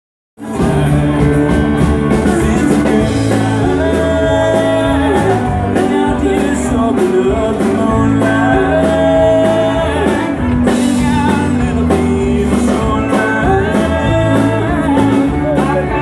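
Live band playing a song with electric and acoustic guitars, drums keeping a steady beat, and a singer. The music starts abruptly about half a second in.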